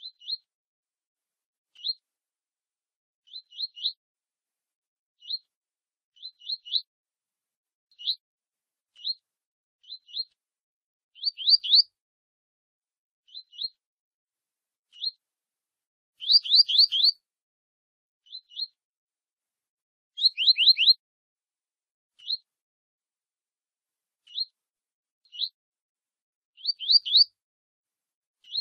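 Double-collared seedeaters (coleiro) giving short 'tui' chirps, singly and in quick runs of three to five, with short silences between. The runs near the middle of the clip and near the end are the loudest.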